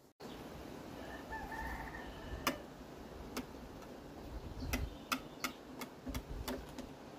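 A faint, drawn-out call about a second in, then a string of about ten sharp, irregularly spaced clicks and taps over a quiet outdoor background.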